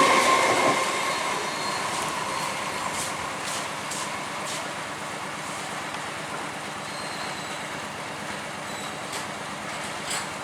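Electric local train (EMU) passing a level crossing and moving away: its noise falls off over the first second or two, then a steady rumble goes on with a few faint clicks.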